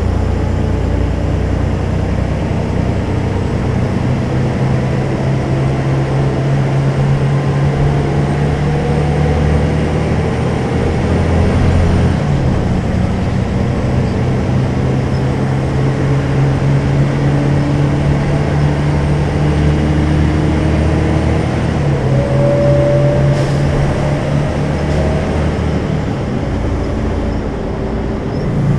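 Volvo B12M bus's 340 hp six-cylinder diesel engine running under way through its ZF gearbox. The engine note rises and falls steadily, with a couple of breaks in it, near the middle and again about three quarters of the way through, that fit gear changes.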